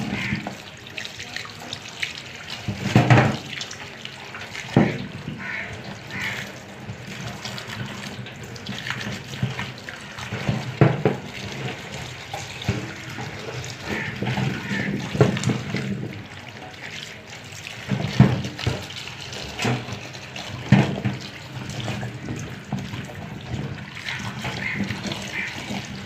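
Tap water running steadily onto sliced taro root in a plastic colander in a steel sink, as hands rub and turn the pieces to wash them, with several short knocks and clatters along the way.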